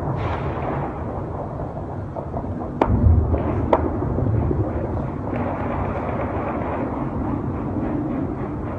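Two sharp bangs about a second apart, the first with a heavy low boom behind it, over a steady low rumble of night-time city noise.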